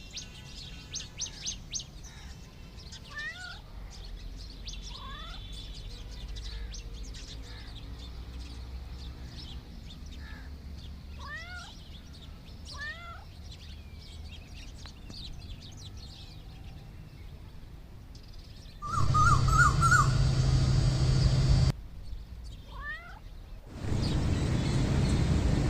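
A cat meowing repeatedly in short rising calls, with small birds chirping high and quick behind it. Near the end the sound cuts to a louder steady hum and then a steady rushing noise.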